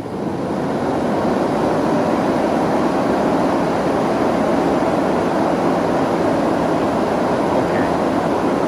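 Electric radiator cooling fans, powered straight from 12 volts, spinning up over about the first second and then running at full speed with a loud, steady rush of air and motor hum. The salvaged fans work.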